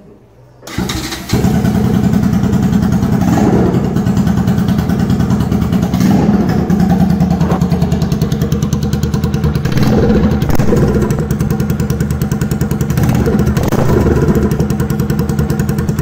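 Bajaj Pulsar NS200's single-cylinder engine starting about a second in, then running steadily at idle with a few brief throttle blips.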